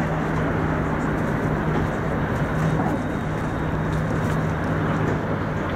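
Passenger ferry's engine running steadily under way: a constant low hum under an even rush of noise.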